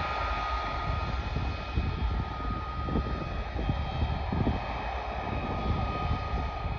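Antonov An-124's four turbofan engines running on its takeoff roll: a steady jet noise with a high, even whine over a heavy, uneven low rumble.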